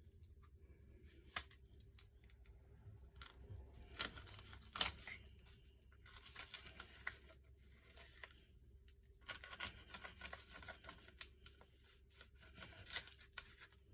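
Faint food-prep handling at a kitchen counter: cutting and tearing noises come in short bursts, with scattered light knocks, over a faint steady hum.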